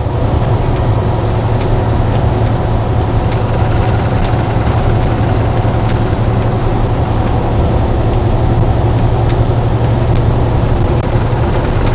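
Steady road and engine noise heard inside a moving truck's cab: a low drone with a hiss over it.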